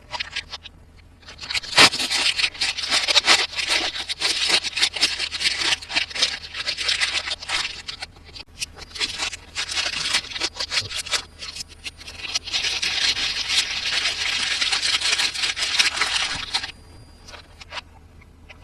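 Toy packaging being handled and opened: dense crackling and scraping in two long stretches, the first from about a second in to about eight seconds, the second from about twelve to nearly seventeen seconds, with scattered small clicks between and after.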